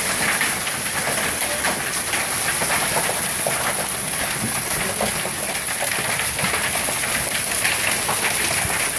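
Hailstorm: a steady, dense clatter of many small hailstones hitting the house and the ground, many quick clicks over a constant hiss.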